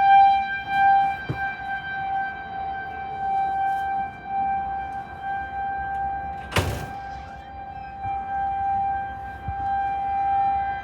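A Federal Signal 2001-130 rotating tornado siren sounds one steady tone at full pitch, swelling and fading in loudness as it turns. There is a brief thump about six and a half seconds in.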